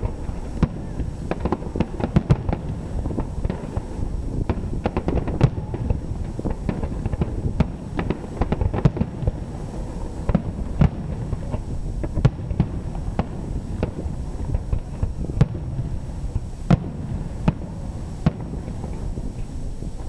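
Fireworks display: aerial shells bursting in a dense, irregular run of sharp bangs and crackles, one after another, over a steady low rumble.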